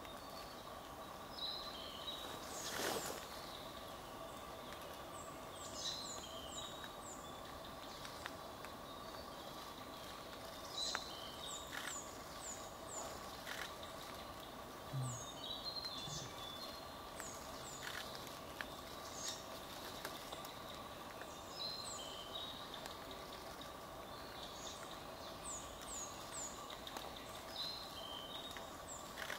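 Songbirds calling, with short high phrases of three or four quick falling notes repeating every few seconds over a steady background hum. A brief rasping burst about three seconds in is the loudest sound.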